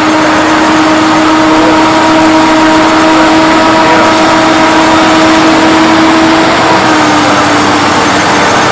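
The diesel engines of a Valtra S 274 tractor and the Deutz-Fahr 8280 TTV it is dragging, running hard under heavy load in a tractor pull. The engine note is loud and steady, and its pitch sags slightly about seven seconds in.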